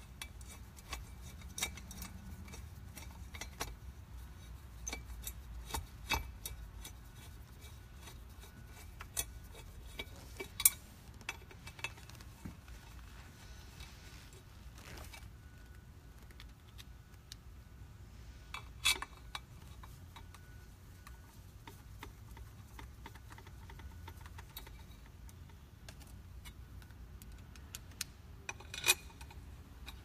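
Scattered small metallic clicks and clinks of a screwdriver working the bolts that hold the dust pipe support on a B2 edger floor sander's metal body. Three sharper clinks stand out: about a third of the way in, near two-thirds, and near the end.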